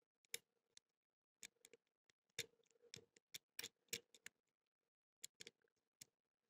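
Faint, irregular sharp clicks and ticks of a pick working the pin tumblers of a Blossom padlock held under a tension wrench, single-pin picking in progress.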